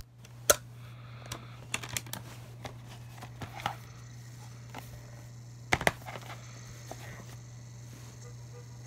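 Irregular light clicks and ticks from a Sylvania portable DVD player as it starts up and loads a disc, over a steady low hum.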